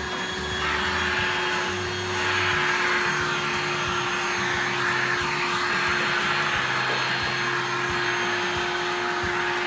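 Vacuum cleaner running steadily through its hose and brush nozzle as it is drawn over window blinds, with a constant motor hum under the rushing air. The pitch of the airflow shifts back and forth as the nozzle moves across the slats.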